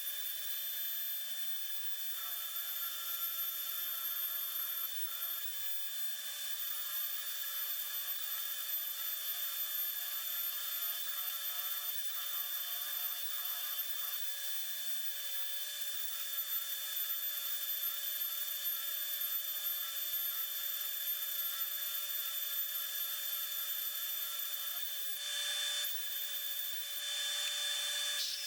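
Belt sander with a fairly fine belt, about 120 grit, running steadily as it sands a teak tabletop with epoxy-filled joints, a constant motor whine over the rasp of the belt. The rasp grows brighter for a few seconds near the end.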